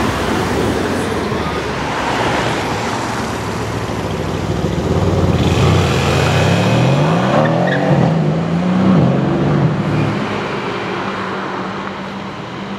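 Mercedes-AMG C63 S Edition One's twin-turbo V8 rumbling as the car pulls away. It then accelerates hard, its engine note climbing and dropping back with quick upshifts, and fades off into street traffic near the end.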